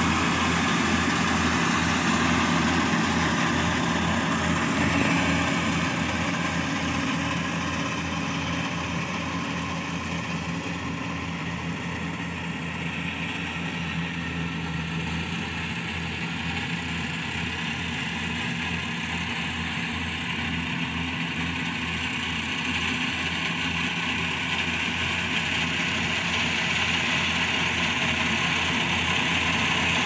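Daedong combine harvester's diesel engine and machinery running steadily while cutting rice. The sound grows fainter in the middle as the machine moves off across the field, then louder again near the end as it comes back toward the listener.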